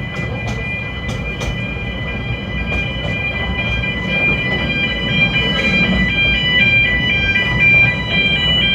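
Train running on the Snowdon mountain railway, with a steady low rumble and a regular clicking that fades out in the first second or so, under a steady high whine. From about four seconds a simple high tune of quickly changing notes plays over the train noise.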